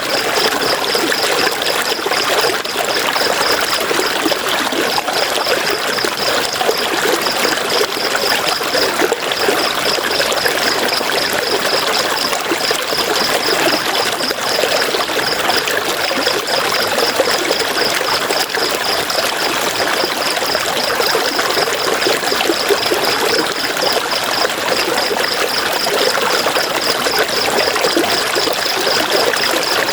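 River water rushing and trickling over rocks in a steady, even wash. Over it runs a high, rapid pulsing chirp in runs with short breaks.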